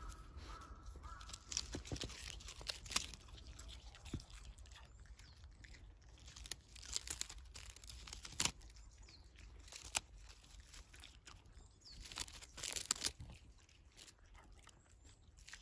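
A Shiba Inu chewing and tearing at a dried bamboo-grass (sasa) stalk, giving irregular crunches and snaps every second or two.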